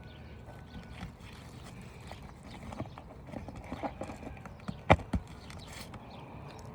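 Irregular scraping, clicks and light knocks of hand tools working loose stuck asphalt shingle material and old staples on a roof, with two sharp knocks close together about five seconds in.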